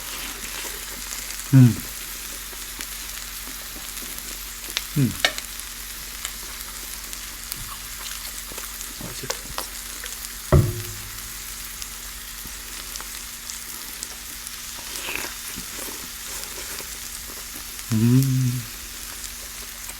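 Close-miked eating sounds: chewing and mouth noises over a steady hiss, with a few short louder sounds scattered through, one of them about 18 seconds in a brief low hum.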